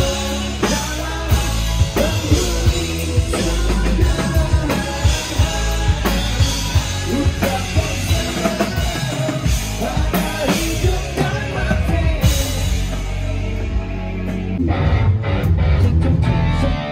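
Rock band playing live, with drum kit, bass and guitars; about 15 seconds in the drums and cymbals drop out, leaving the guitars and bass ringing on.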